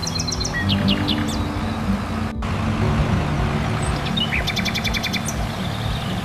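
Birds chirping in quick trills of short high notes, one near the start and another about four to five seconds in, over a steady low background hum; the sound cuts out for a split second about two seconds in.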